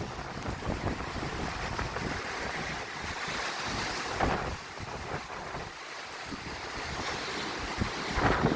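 Surf breaking on a beach in strong wind, with gusts buffeting the microphone. The wash of the waves swells about four seconds in and again near the end.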